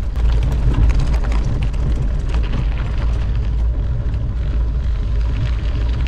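Wind buffeting the microphone of a camera carried on a moving mountain bike: a steady low rumble, with light ticks and rattles over it.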